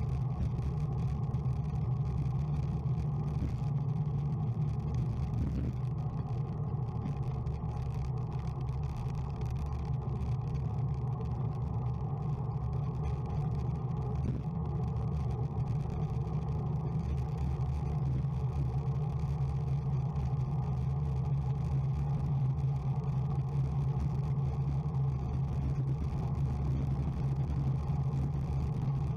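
Steady rush of wind and low road rumble on the microphone of a bicycle ride at about 40 km/h, continuous throughout.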